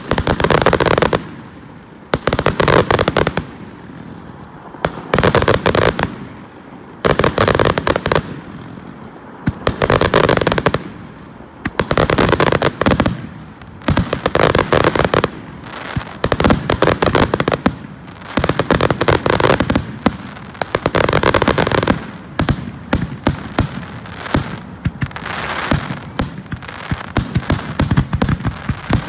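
Fireworks display: aerial shells bursting one after another about every two seconds, each burst a loud crackle of many sharp pops. In the last several seconds the pops come faster and closer together.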